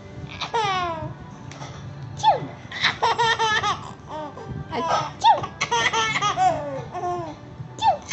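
A baby laughing in repeated bursts of high-pitched belly laughs and giggles, coming in quick volleys.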